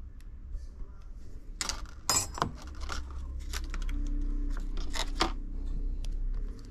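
Handling noises at a repair bench: short scrapes and clicks, a cluster about two seconds in and two more near the end, over a steady low hum.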